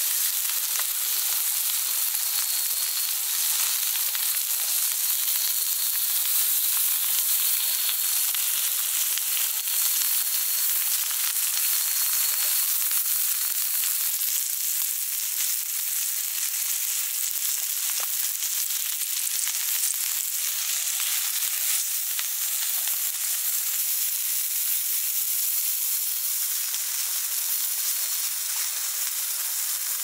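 Slices of meat searing on a hot metal griddle plate over a fire: a loud, steady sizzle with fine spitting crackles throughout.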